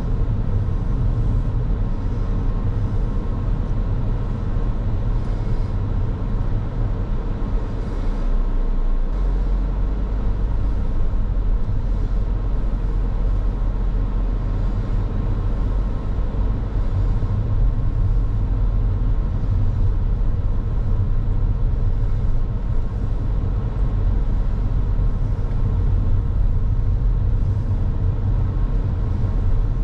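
Car driving along a road: a steady low rumble of tyre and engine noise that holds even throughout.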